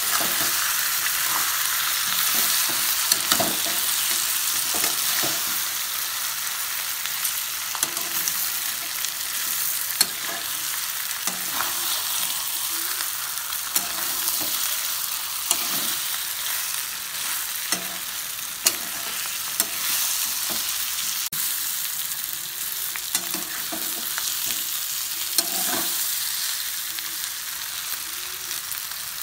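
Chicken pieces frying in masala and oil in a metal kadai, sizzling steadily. A metal spatula stirs and scrapes them, with a sharp clink of spatula on pan every second or two.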